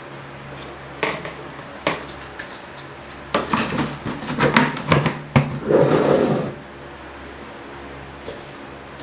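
Hard plastic clicks and clattering as a robot vacuum's plastic dustbin is handled. There are two sharp clicks in the first two seconds, then a few seconds of busy rattling and rubbing.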